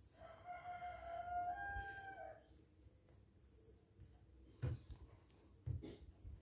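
A single bird call of about two seconds, its pitch rising slightly, followed near the end by two dull thumps about a second apart.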